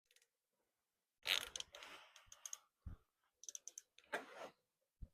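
Hand tools and small metal engine hardware clicking and clinking in short, irregular clatters as parts are fitted, with one dull knock near the middle.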